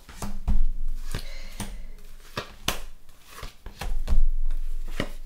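Tarot cards being handled and laid out on a tabletop: a run of irregular light taps and clicks, about one or two a second, some with a dull low thump through the table.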